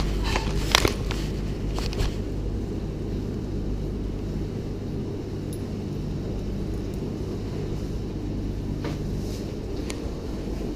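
Steady low electrical machine hum, with a few sharp clicks in the first two seconds.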